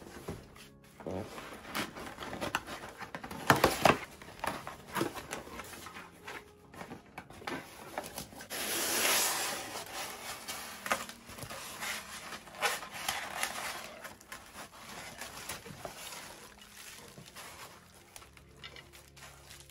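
A cardboard box and its styrofoam packing being handled by hand: cardboard flaps and packaging rubbing and knocking, with sharp knocks a few seconds in and a longer scraping rush about halfway through as the styrofoam shell is pulled out.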